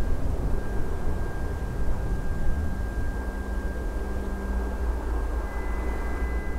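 Ambient soundtrack drone: a steady low rumble under sustained high ringing tones, with a second high tone joining about five and a half seconds in.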